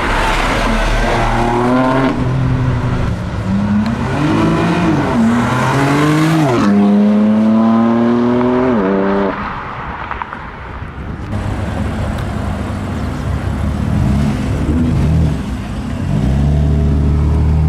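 BMW M4's twin-turbo straight-six accelerating hard through the gears, its pitch climbing and dropping back at each of about three upshifts, then falling away about nine seconds in. A loud, deep engine note comes in near the end.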